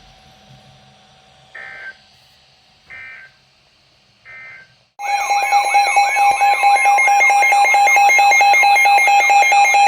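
Weather alert radio receiving a new alert. Three short bursts of digital data tones come first, then about halfway through the radio's loud alarm starts: a steady tone with a rising warble repeating about three times a second, signalling an incoming warning.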